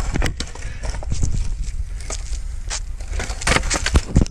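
Skateboard wheels rolling on concrete with a steady low rumble, broken by a string of sharp clacks and knocks of the board against the ground and ledge. The loudest knocks come near the end.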